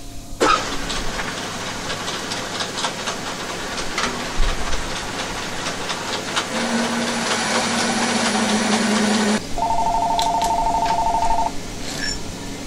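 Metal lathe running and cutting into the face of a 1957 GMC water pump impeller held in its chuck, taking more material off to set the impeller's height: a steady hiss with scattered small ticks. A short buzzing tone comes in about ten seconds in and lasts about two seconds.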